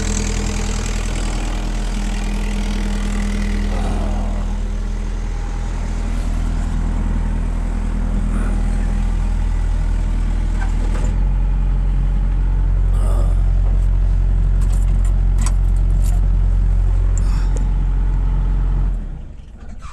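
Case CX75SR excavator's diesel engine running steadily. It gets a little louder about eleven seconds in, then shuts off abruptly near the end.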